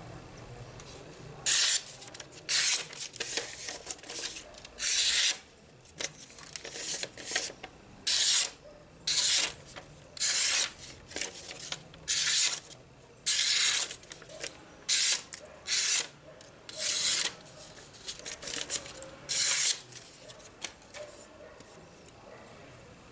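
A knife blade makes some fifteen short rasping strokes, each lasting under half a second and irregularly spaced, as the steel edge is drawn against stone and paper. The strokes stop near the end.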